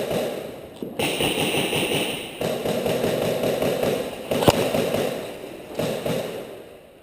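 Airsoft rifles firing on full auto: a rapid stuttering clatter in several long bursts with short breaks between them. There is one sharp crack about four and a half seconds in, and the firing dies away near the end.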